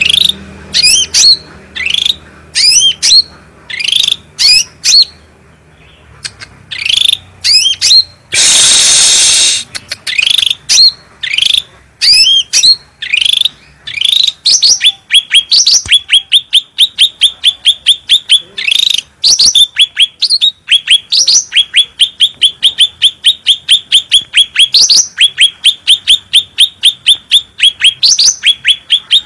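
Cucak rante songbird singing loudly: separate sweeping whistled notes, with a harsh rasping call about eight seconds in, then from about fourteen seconds a rapid run of repeated chirps, about four a second.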